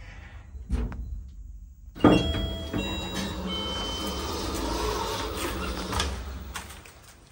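Automatic sliding doors of a ShLZ Ecomaks passenger lift opening: a thud, then a sudden clunk about two seconds in as the doors start to move, and several seconds of the door drive running and the panels sliding before it fades near the end.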